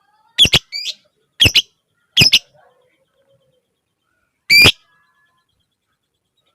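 Lovebird giving loud, shrill, clipped calls in short bursts. Several come as quick doubles in the first two and a half seconds, then after a pause comes one last single call.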